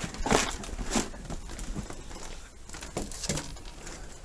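Irregular crunches and light knocks of debris, spaced about half a second to a second apart.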